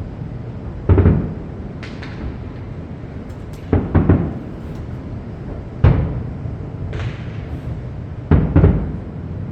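Aerial fireworks bursting one after another: about nine sharp bangs over nine seconds, several in quick pairs, each dying away in a short rumble.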